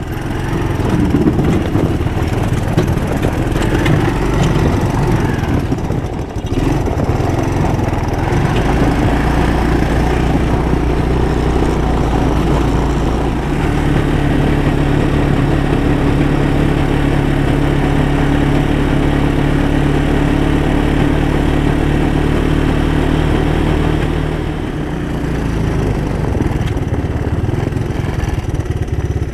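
Small Honda off-road machine's engine running while being ridden across lake ice. The engine note holds steady for long stretches, shifts pitch a few times and eases off briefly about twenty-five seconds in.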